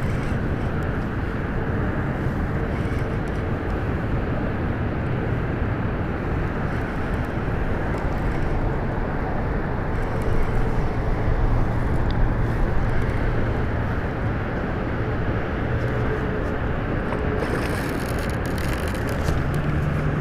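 Steady wind rumble on the camera microphone over lapping bay water while a baitcasting reel is wound in. Near the end comes a short run of sharper crackling.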